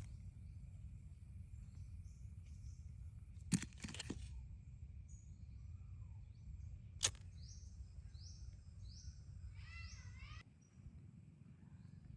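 A few sharp clicks, a small group about three and a half seconds in and a single one near seven seconds, over a low steady rumble. Faint high bird chirps come between about five and ten seconds in.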